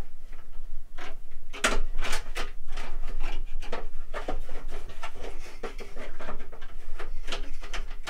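Irregular knocks, clicks and scrapes of a 360 mm AIO radiator with its fans being handled and tilted against a PC case.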